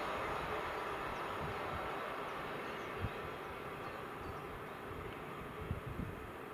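Train running on the line and moving away, its rumble slowly fading, with a few low knocks about three seconds and six seconds in.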